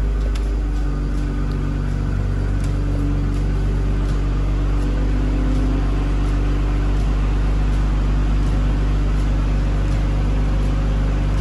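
A 2021 BMW 740i's turbocharged inline-six engine idling steadily.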